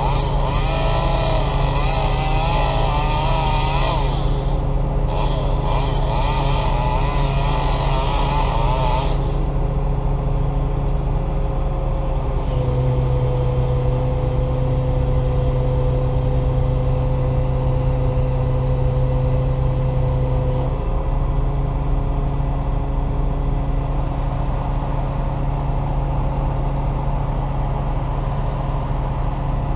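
Engine running steadily at a low pitch, its tone shifting to a stronger, steadier note for about eight seconds in the middle. A wavering higher-pitched sound rides over it for the first nine seconds.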